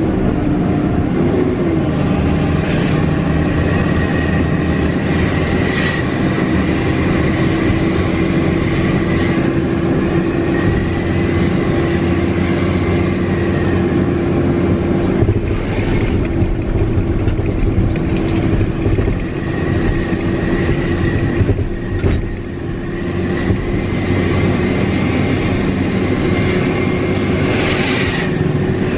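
Mitsubishi Fighter truck's turbocharged diesel engine running under way, heard from inside the cab: a steady drone with a thin, high turbo whistle that drifts up and down with the throttle.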